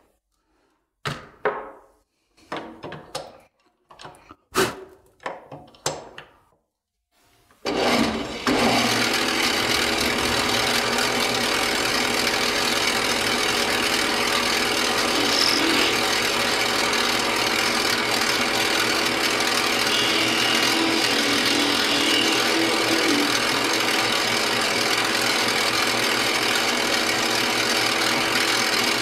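A run of separate metal knocks and clicks for the first seven seconds or so. Then, about eight seconds in, a metal lathe starts and runs steadily, its carbide insert tool turning down a bar of 4140 steel with an even, hissing cutting noise over a low hum.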